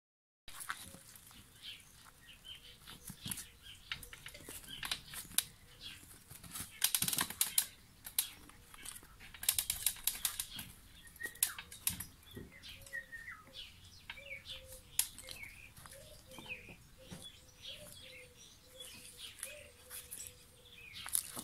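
A puppy's claws scratching and clicking on concrete as it paws and scrabbles at the ground, in scattered clicks with quick dense runs of scrabbling about seven seconds in and again around ten seconds.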